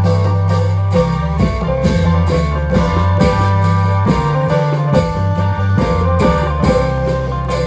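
Isan klong yao long-drum band playing: drum strokes in a steady beat under an amplified plucked-string melody and a sustained bass line.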